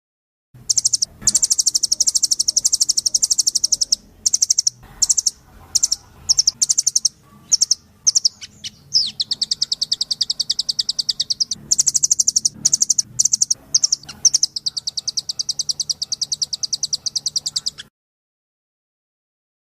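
Bird-song tutoring (masteran) recording of very rapid, high-pitched trills. Long trilled phrases alternate with short clipped bursts, then cut off suddenly near the end.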